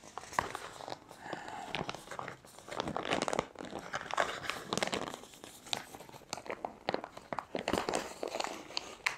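Freeze-dried meal pouch crinkling in the hands and being torn open across the top along its tear nicks, in uneven bursts with a sharp snap near the end.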